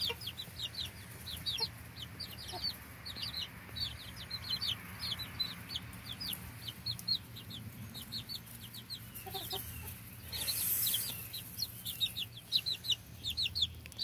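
Young chicks peeping steadily: a continuous stream of short, high chirps, with a few lower calls about nine seconds in. A brief burst of hissing noise comes about ten and a half seconds in.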